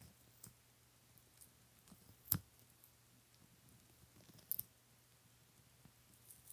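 Baby sulcata tortoises biting and tearing leafy greens: faint, scattered crisp clicks and crunches. The loudest comes about two seconds in, with a close pair about four and a half seconds in.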